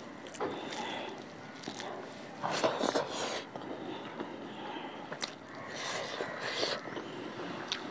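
Close-miked eating sounds of a hand-eaten rice meal: fingers squishing and mixing rice on the plate, and chewing, in uneven bursts that are loudest a few seconds in.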